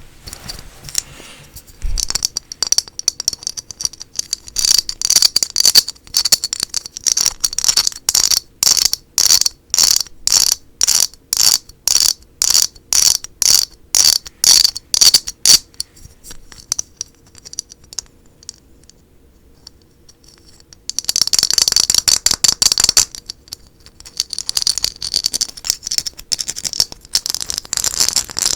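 Fast ASMR scratching and tapping on a small hard object. It comes first as a run of even strokes about two a second, then after a lull of a few seconds as two dense runs of quick scratching.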